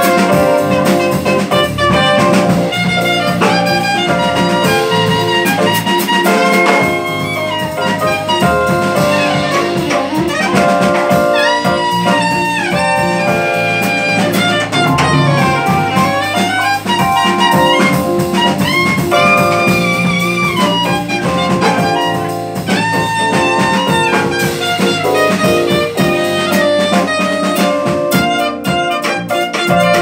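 Live jazz quartet playing: a soprano saxophone carries the melody with sliding, bent notes over piano chords, electric bass and drum kit with cymbals.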